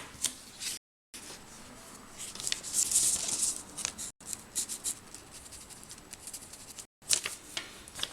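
Small clicks, taps and scraping from handling small objects, with a louder hissy rustle about three seconds in, broken twice by brief dead gaps.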